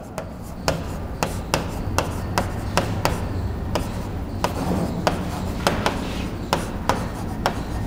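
Marker pen writing on a whiteboard: a run of sharp taps, about two a second, with rubbing strokes between them, over a low steady hum.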